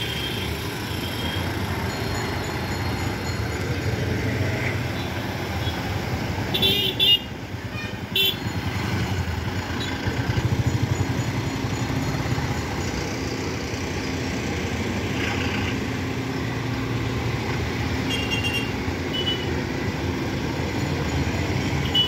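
Ashok Leyland buses driving slowly past with their engines running, over general road traffic. Short vehicle horn toots come in a cluster about a third of the way through, with a few more near the end.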